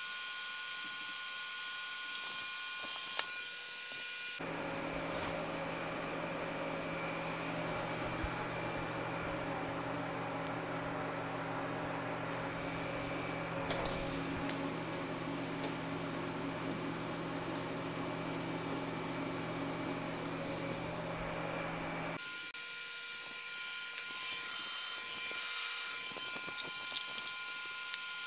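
TIG welding of thin-wall 304 stainless tube turning on a welding positioner: a steady whine with the hiss of the arc. From about four seconds in to about twenty-two seconds, a lower steady hum takes over and the high hiss fades, then the whine returns.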